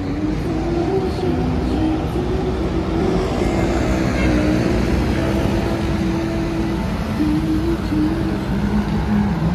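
Steady road traffic on a busy city street, with a melody of held notes from music playing over it.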